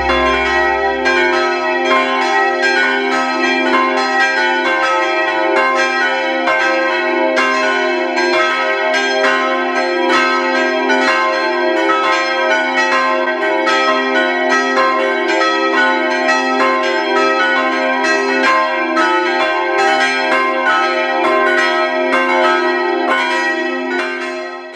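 Several electrically driven church bells swinging and ringing together, their strokes overlapping in a dense, continuous peal with long-sustained ringing tones. The peal cuts off abruptly at the end.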